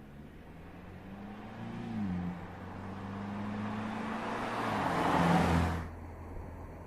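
Mercedes-Benz SLC 300's turbocharged four-cylinder engine accelerating. Its pitch rises, then drops about two seconds in as it shifts up, and it pulls on steadily. Near the end a louder rushing noise builds and cuts off sharply.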